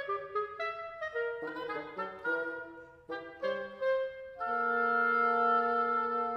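Reed trio of oboe, clarinet and bassoon playing a twelve-tone march in short, detached notes, then, about four seconds in, settling on a long held three-voice chord.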